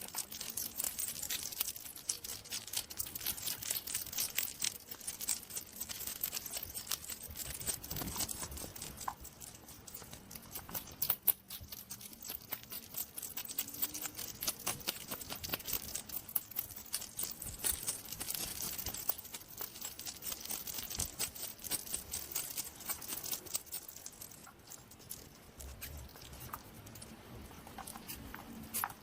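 A hedgehog making a dense, irregular run of small rapid clicks and crackles, with one sharper snap about eleven seconds in.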